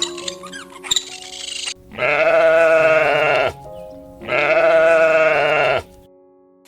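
Two long, wavering bleats from a sheep or goat, each about a second and a half, the second starting about a second after the first ends. Some short high squeaks come in the first second or so.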